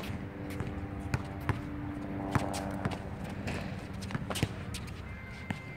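Basketball bouncing on an outdoor hard court as a player dribbles: sharp bounces at an uneven pace, about two a second, over a steady low hum.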